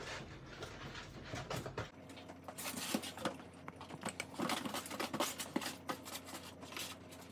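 Hands rubbing seasoning into raw mackerel in a plastic basin: an irregular run of soft, wet slaps and rubbing against the fish skin and the basin.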